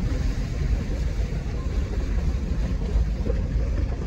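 Vehicle driving over a rough, rocky unpaved track, heard from inside the cabin: a steady low rumble of engine and tyres on stones.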